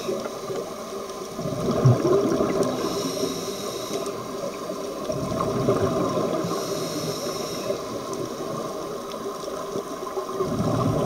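Diver's scuba regulator breathing heard underwater: a hiss on each inhale alternating with a rumble of exhaust bubbles on each exhale, repeating every few seconds.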